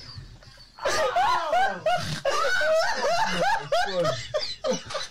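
A woman laughing hard in choppy, high-pitched peals that rise and fall, starting about a second in.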